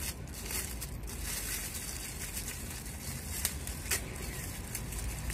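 Thin plastic packaging crinkling and rustling as a small pump part is unwrapped by hand, with two sharper crackles about half a second apart a little past the middle.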